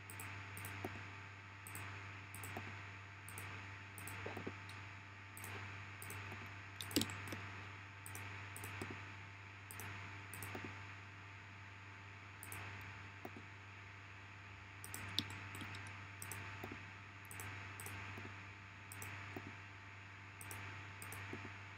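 Faint, irregular clicks of a computer mouse and keyboard over a steady low hum, with two louder clicks about seven and fifteen seconds in.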